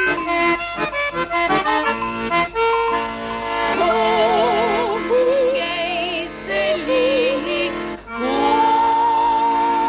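Accordion-led traditional-style music: a run of short quick notes, then held notes with vibrato, breaking off briefly about eight seconds in before a long held chord.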